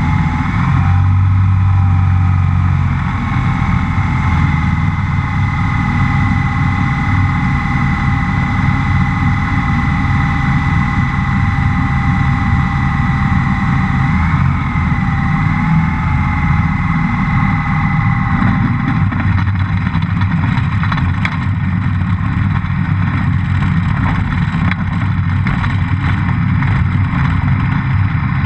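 Rotax 912 flat-four aircraft engine and propeller of a Rans S7S running steadily with air rushing past, through a landing; a steady whine drops away about two-thirds of the way in, and knocks and rattles follow as the plane rolls over a rough dirt strip.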